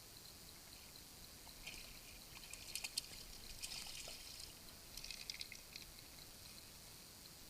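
Faint water splashing and trickling in a few short, crackly bursts, between about two and five and a half seconds in.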